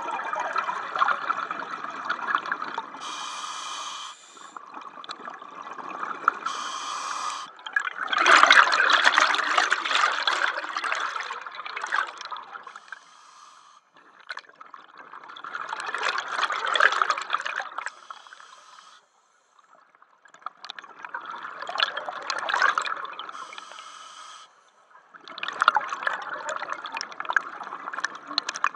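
Scuba diver breathing underwater through a regulator. Short hissing inhales alternate with long rushes of exhaled bubbles, about one breath every five to six seconds.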